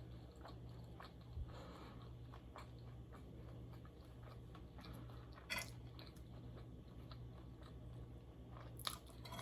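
Close-miked chewing and mouth sounds: soft wet clicks and smacks, with a few sharper clicks standing out, over a steady low hum.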